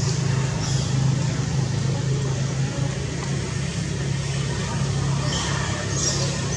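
A steady low engine hum. A few brief high chirps come near the end.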